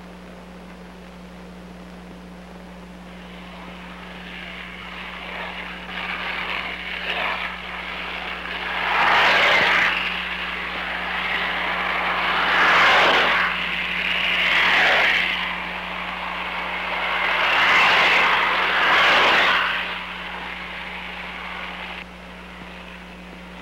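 Skateboard wheels rolling fast over pavement: a rushing roar that builds and swells into several loud pass-bys, then cuts off sharply near the end.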